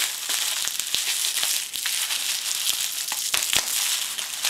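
Plastic bubble wrap crinkling and crackling in the hands as it is pulled off a jar, with many small sharp clicks.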